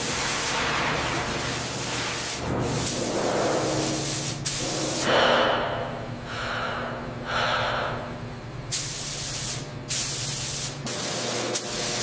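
Paint spray guns hissing in bursts that start and stop abruptly, over a steady low hum.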